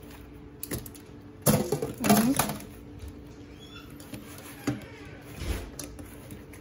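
Kitchen handling sounds: a stainless mesh strainer clattering against the steel sink, loudest about a second and a half in, then a few softer knocks and the rustle of a cloth being folded over soaked sticky rice in a bamboo basket.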